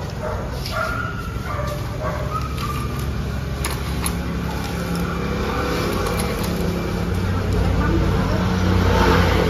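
Low, steady engine rumble of a motor vehicle that grows louder near the end, with a couple of light clicks about four seconds in.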